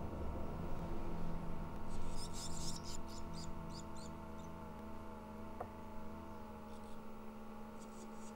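Barn swallow nestlings giving high, rapid begging chirps in a burst from about two seconds in, fading out by about four and a half seconds, then starting again near the end as food is offered.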